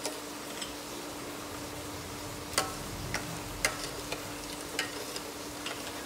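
A metal spoon stirring milk and sugar in a stainless steel saucepan, clinking sharply against the pan now and then, about nine times, loudest near the middle. A steady low hum runs underneath.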